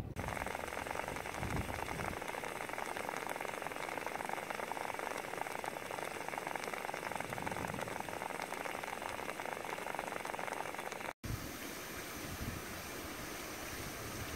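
Geothermal steam vent hissing and sputtering: a dense, steady rush full of fine crackles. After a brief break near the end, a steaming mud pot hisses a little more quietly.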